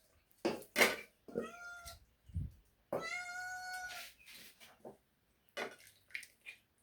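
A cat meowing: a short call that bends in pitch, then a longer, steadier meow about a second long. A couple of sharp knocks come just before the first call.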